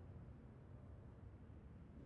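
Near silence: a faint, steady low rumble with no bursts or bangs.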